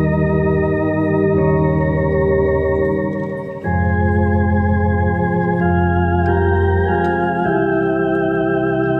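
Tokai YX 400 Organist electronic organ playing a slow hymn in held chords over a bass line, the chords changing about every two seconds. There is a short break between phrases about three and a half seconds in.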